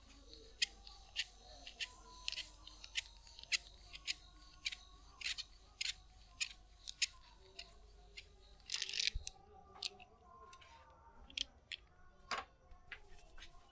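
A series of sharp, evenly spaced clicks, a little under two a second, over a steady high hiss. After about nine seconds the hiss stops and the clicks turn sparse and irregular.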